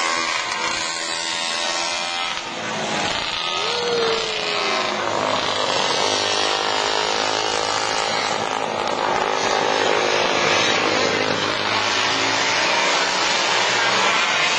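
Vintage motorcycle engine running on a race track, its note shifting up and down as the bike laps, with a falling pitch about four seconds in.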